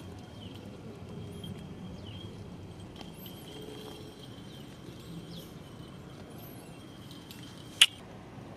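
Quiet outdoor background with a few short, high bird chirps over a steady thin high tone, and one sharp click near the end.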